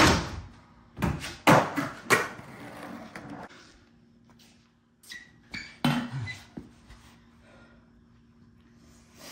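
Skateboard wheels rolling on a concrete floor, with a loud clack of the board right at the start and three more sharp clacks over the next two seconds as the board pops and lands. The rolling dies away at about three and a half seconds in. Later come a few softer knocks over a low steady hum.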